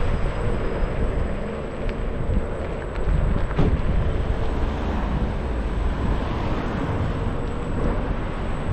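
Wind buffeting the microphone and tyre rumble on asphalt from a scooter riding along a street, with a faint steady hum underneath.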